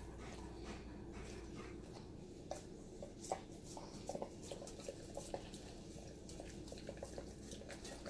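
A dog licking out a stainless steel bowl: faint, irregular wet licks with small clicks of the tongue against the metal.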